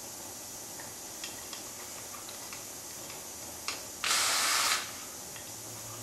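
A handheld cordless drill runs in one short burst of under a second, spinning a socket on a nut at the alternator's hub to take it off. A few light clicks of the socket and tool come before it.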